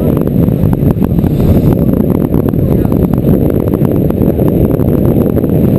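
Wind buffeting the microphone hard over the rush of water along a sailing yacht's hull as it drives through the waves at speed, a loud, steady low rumble with constant crackling.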